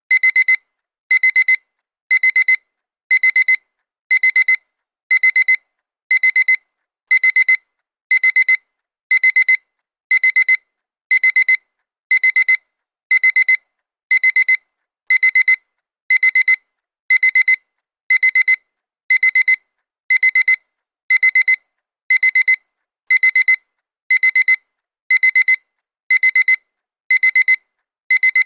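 Digital alarm clock beeping. A quick high-pitched double beep repeats evenly about once a second.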